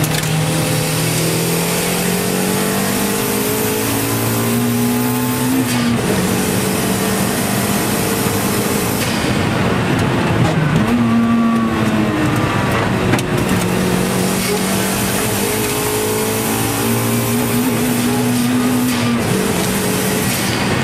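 Turbocharged Toyota MR2 AW11's four-cylinder engine, heard from inside the cabin, pulling hard under full throttle. The revs climb and then drop at each gear change several times, and ease off briefly near the middle.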